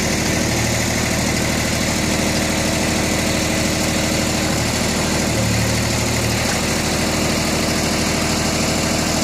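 Mitsubishi MTE2000 compact tractor's diesel engine running steadily while the backhoe is worked. An added low hum comes in twice, briefly about half a second in and again for a couple of seconds around the middle, as the hydraulics take load.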